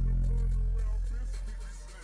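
Hip hop music played through a car audio system, dominated by a long, deep sub-bass note from an 18-inch Mach 5 Audio IXL subwoofer that fades away near the end.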